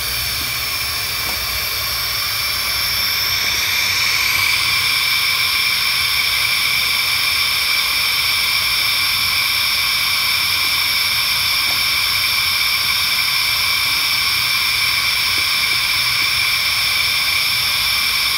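Automated paint line running: a steady rushing hiss of blown air with a few fixed high whistling tones in it, growing louder about four seconds in, then holding steady.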